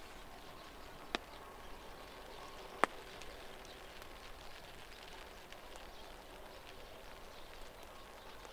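Faint outdoor ambience, a soft even hiss, broken by two sharp clicks: one about a second in and a louder one just under three seconds in.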